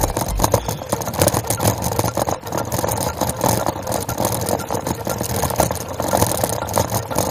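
Bicycle rolling over cobblestones: a continuous, rapid rattle of small knocks and vibration, picked up by a camera mounted on the bike.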